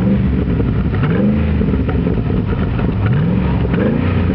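Chevrolet V8 revved at standstill through a new complete exhaust system with twin dual tailpipes. The throttle is blipped about four times, each rev climbing and falling back.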